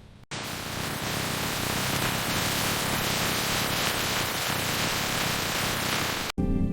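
Steady, even hiss like static that starts suddenly and cuts off suddenly near the end, where music begins.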